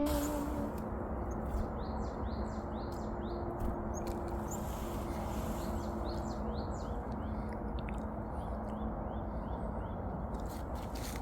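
A small tit singing three short phrases of quick, high, repeated notes over a steady background rush.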